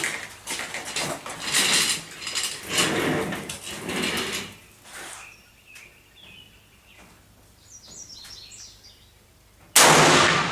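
A single loud rifle shot near the end, cutting in suddenly and ringing on. Before it, irregular rustling and clattering of handling noise.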